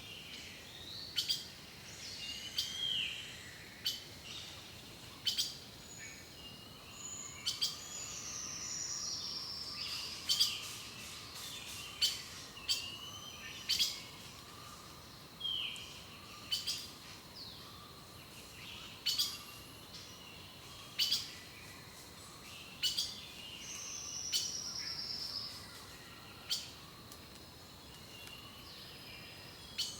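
Wild birds singing and calling: many short, sharp chip notes every second or so, with a few longer high trilled phrases that slide down in pitch, over a thin steady high tone.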